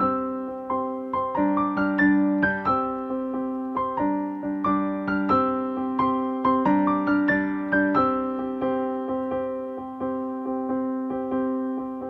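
Background music: gentle solo piano, a melody of single struck notes over held lower notes.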